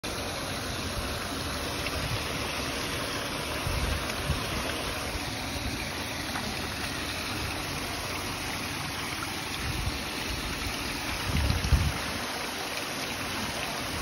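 Water from a small stone fountain trickling steadily over rock, with a few brief low rumbles about four seconds in and again near the end.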